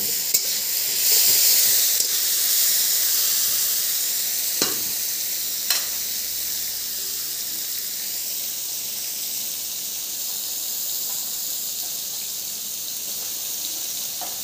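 Sliced green capsicum and garlic sizzling in hot oil in a kadai: a steady hiss, loudest about a second in, then settling. A steel spatula knocks the pan a few times in the first six seconds.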